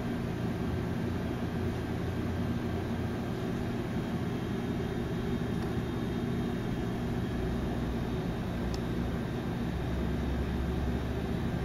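Steady low mechanical hum of running machinery, with several level low tones under an even noise.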